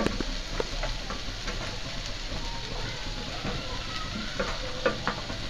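Diced carrots, onion, tomato and green peas sizzling steadily in hot oil in a nonstick pan, with scattered short crackles.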